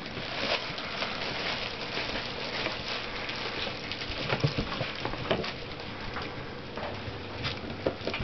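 Shetland Sheepdog puppies rummaging in a shoebox, rustling and crinkling a heavy plastic bag, with many small scrabbling clicks.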